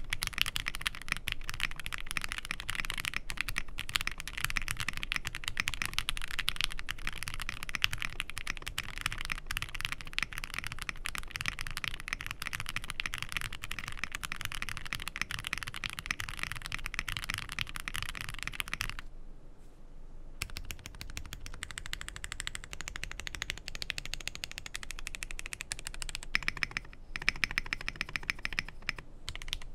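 Typing on a Zoom65 EE V2 mechanical keyboard: a fast, dense run of keystroke clacks that stops for about a second and a half around two-thirds of the way through. It then resumes more sparsely, with a few louder strikes near the end.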